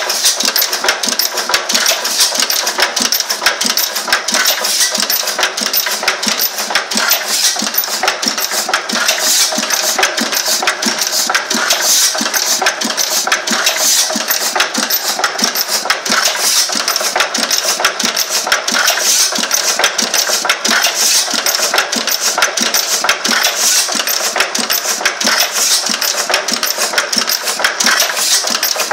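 Old Benz stationary engine running steadily, its moving parts making a rapid, even metallic clicking.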